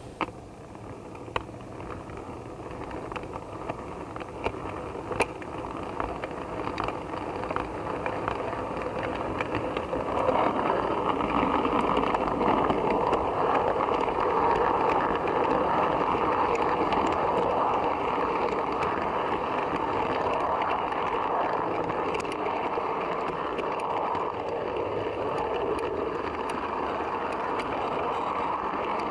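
Model train running on its track, heard from on board one of the coaches: a rolling rattle of wheels on rail that grows louder as the train picks up speed over the first ten seconds, then runs steadily. A few sharp clicks come in the first five seconds.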